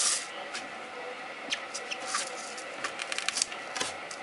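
Knife sawing through a rubber hose on a workbench: scattered scrapes and short clicks, with a quick run of clicks about three seconds in.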